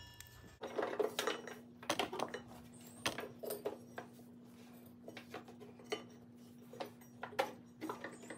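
Scattered light clinks and knocks as a rubber drive belt is handled and routed around the pulleys of a steel Cub Cadet 50-inch mower deck, with a faint steady hum underneath.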